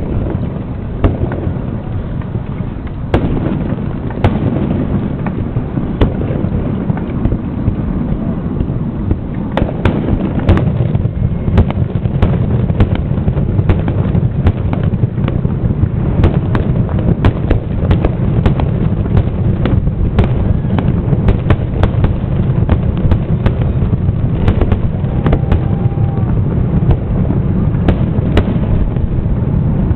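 Aerial fireworks shells bursting in a rapid run of sharp bangs and crackles, growing more frequent after the first several seconds, over a steady low rumble.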